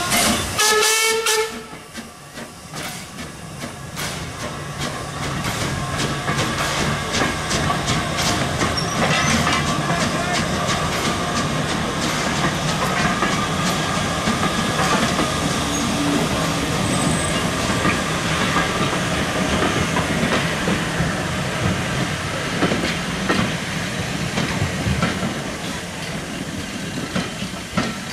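Hunslet 'Austerity' 0-6-0ST saddle-tank steam locomotive sounding a short whistle about a second in as it moves off, then hissing steam and its coaches clicking and rattling over the rail joints as the train passes and draws away.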